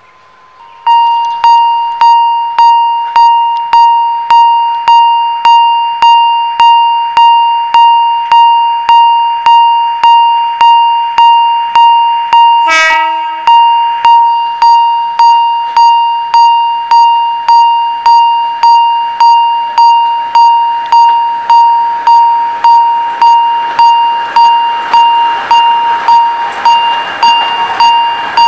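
Railway level-crossing warning bell ringing, a bright ding repeating about one and a half to two times a second, starting suddenly about a second in. A short horn blast sounds about halfway, and a rushing noise of a train builds up near the end.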